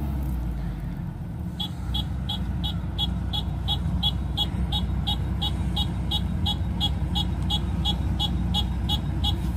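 Rice combine harvester's engine running with a steady low rumble. About a second and a half in, a rapid, regular beeping of about four beeps a second starts and keeps going over it.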